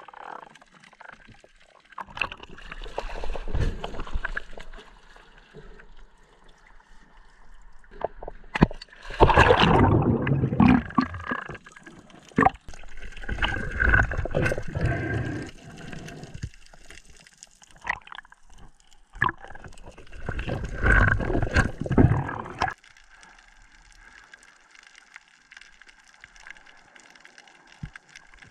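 Underwater gurgling and rushing of water around a diver's camera, swelling up in several surges of a few seconds each, with scattered sharp clicks in between.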